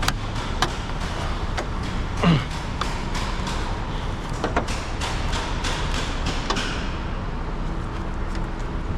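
Micro ratchet clicking in short, irregular runs as it is worked on a 10 mm adjustment bolt that won't come loose, over a steady low hum; a brief falling sound about two seconds in.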